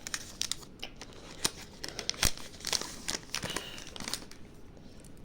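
Trading cards being handled and flipped through by hand: a string of small clicks and slaps of card stock, the sharpest a little over two seconds in.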